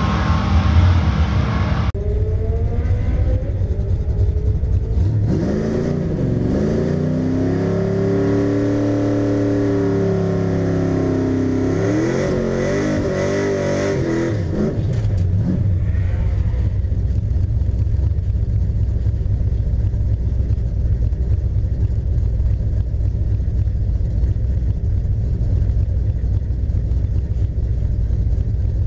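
A car's engine on the drag strip for about two seconds, then the 454 big-block V8 of a 1979 Camaro heard from inside the car. It rumbles low, revs up and down for about ten seconds in the middle, then settles into a steady low idle.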